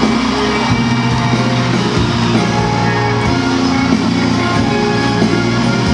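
Live band music playing steadily at a pop concert, with instruments such as guitar.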